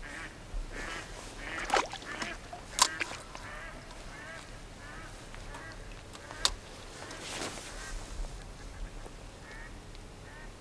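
Ducks quacking in a run of short repeated calls, with a few sharp clicks, the loudest about two, three and six and a half seconds in.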